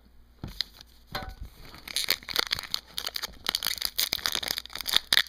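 Foil wrapper of a hockey card pack being torn open and crinkled by hand: a few light clicks at first, then dense crinkling from about two seconds in.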